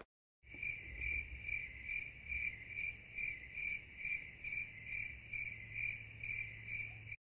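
Cricket chirping, used as a sound effect: an even, high-pitched chirp about three times a second that starts half a second in and cuts off abruptly near the end. It is the 'crickets' gag for a place that is empty and quiet.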